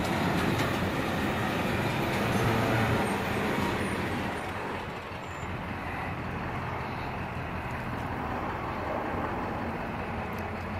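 Vehicle noise from a large motor vehicle, louder for the first four seconds or so, then easing to a steady lower level.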